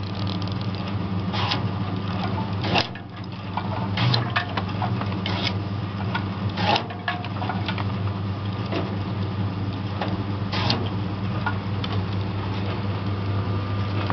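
Sugarcane cutting machine running with a steady low hum while its blade chops through cane stalks, giving about six sharp cracks at uneven intervals, with smaller clicks between.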